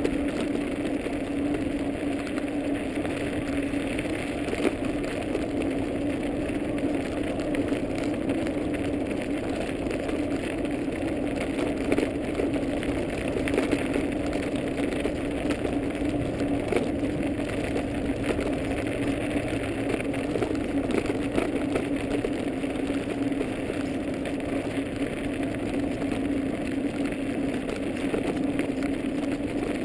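Dog scooter rolling over a snow-covered path behind a team of dogs: a steady rumbling hum from the tyres, with small rattles.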